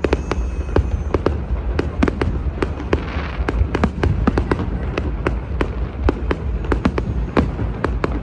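Many fireworks going off at once: an unbroken barrage of pops and bangs, several a second, over a low rumble, with a brief hiss about three seconds in.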